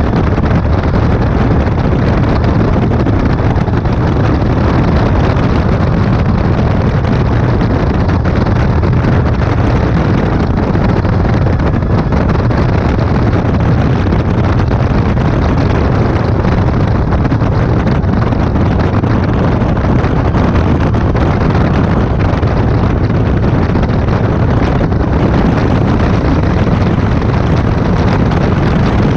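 A light aircraft's engine running steadily at constant power, with heavy wind noise on the microphone. The low, even drone does not change in level throughout.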